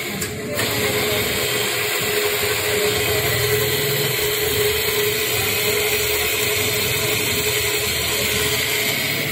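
Bench drill press running with a steady hum, its bit drilling into the bushing bore of a motorcycle engine-support bracket held up by hand.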